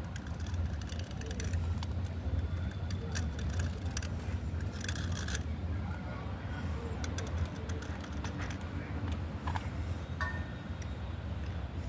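A metal blade scraping shavings off a wet slate pencil: a run of irregular crisp scratches and small crackles, denser about five seconds in, over a steady low hum.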